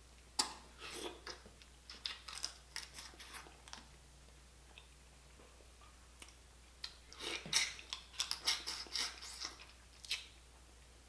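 Cooked blue crab shell crackling and snapping as the meat is picked out by hand, with chewing. The sound comes in two spells of quick, sharp clicks, one near the start and a louder one in the second half.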